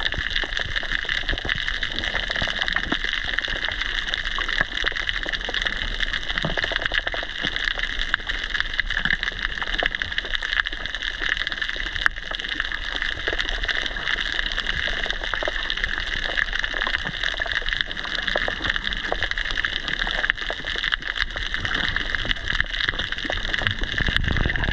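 Underwater ambience picked up by a camera submerged in its waterproof housing: a steady hiss with a dense crackle of tiny clicks.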